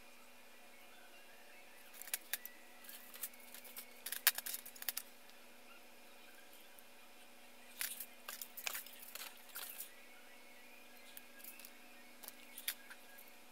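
Plastic Gundam model-kit runners and parts being handled, clicking and rattling against each other and the tile floor in three short spells of sharp clicks.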